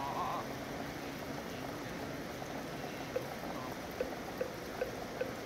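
Steady rain, the sound of rain in the city. From about three seconds in, a wooden moktak (temple block) is struck at an even beat, about two and a half strokes a second.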